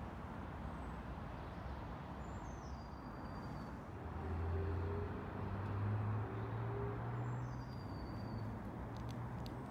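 Outdoor vehicle noise: a low engine hum over a steady background rush, swelling about four seconds in and easing off again. A high, falling whistle sounds twice.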